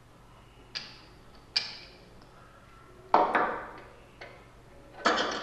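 About five clicks and knocks as a microwave oven's high-voltage capacitor and its wire leads are handled and set down on a stone tabletop, the loudest a little after three seconds in.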